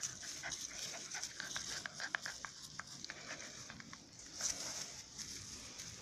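A puppy giving short, squeaky whimpers while it play-bites a hand, in a quick run through the first half, over a steady high hiss.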